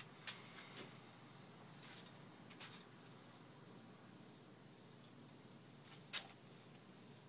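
Near silence with a faint steady high-pitched tone and a few soft clicks from hands on the diesel generator's controls and wiring; the generator is not running.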